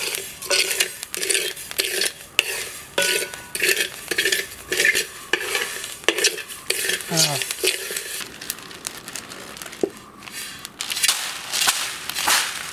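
Flat metal spatula scraping and stirring red rice as it dry-roasts in a wide aluminium pan, the grains rattling and hissing across the metal in repeated strokes about two a second.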